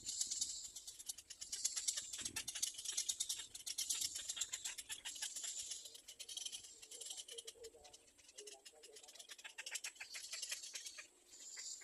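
Baby birds giving rapid, high-pitched chattering begging calls for food, with a few lower warbling notes between about six and nine seconds in.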